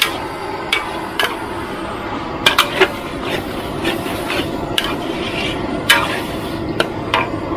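Metal spatula clanking and scraping against a wok as chicken offal is stir-fried, about ten sharp, irregularly spaced strikes over a steady rushing noise.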